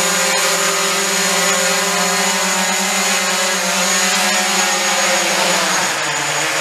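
DJI Mavic Pro quadcopter's motors and propellers buzzing loudly in a low hover, with a thin high whine over the buzz. The pitch drops a little near the end as the drone settles onto the floor.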